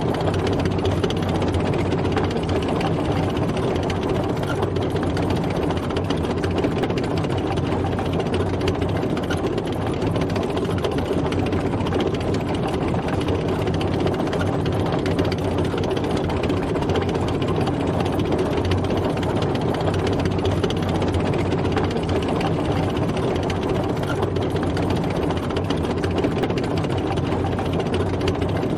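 Tank driving: a steady, dense engine and running-gear rumble that holds an even level throughout.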